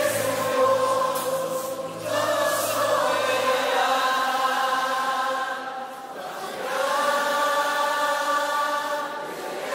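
A choir singing long held notes of a worship song, the chord changing every couple of seconds, with a low steady note underneath that stops about four seconds in.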